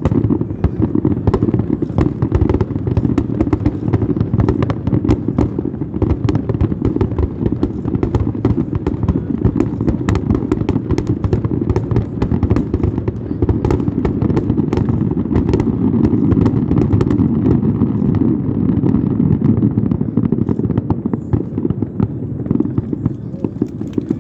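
Fireworks display: a rapid, unbroken barrage of bursts and crackles over a continuous rolling rumble of booms.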